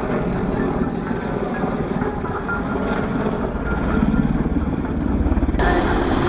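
Aircraft engine noise from a flying display: a loud, dense low rumble with a rapid, even pulsing. It changes abruptly near the end, where the recording cuts to a brighter shot of the same kind of engine noise.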